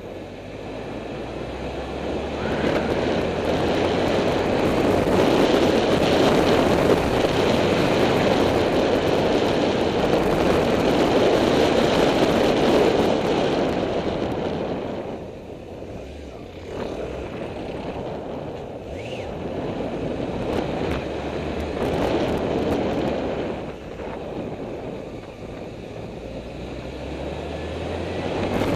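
Riding noise of a Honda CBF600 motorcycle under way: wind rushing over the microphone mixed with the engine. It builds over the first few seconds, drops off about halfway through, then rises again near the end.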